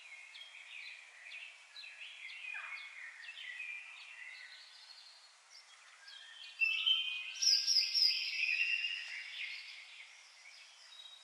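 Songbirds singing and chirping, several songs overlapping in short whistled phrases, louder for a few seconds a little past the middle.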